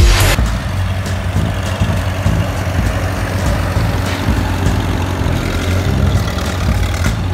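Antique farm tractor engine running at a steady low speed as the tractor drives past, a low even engine note.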